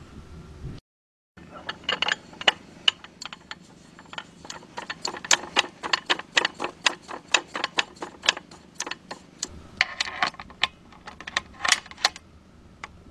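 Nikon Prostaff 7 rifle scope's turret being turned: a long, irregular run of sharp clicks, a few a second, starting after a short gap about a second in, as the scope is dialled for elevation at 300 m.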